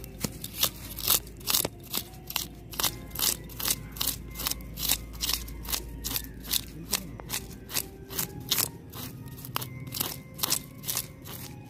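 Knife blade scraping the scales off a whole hilsa fish in quick, even rasping strokes, about two to three a second.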